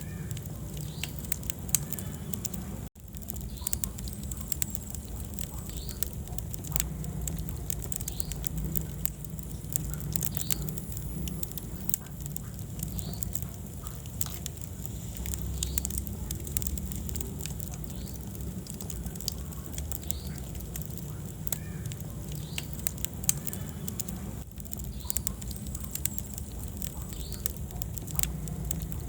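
Wood fire crackling in a fireplace: irregular sharp pops and snaps over a steady low rumble of burning. The sound cuts out for an instant about three seconds in.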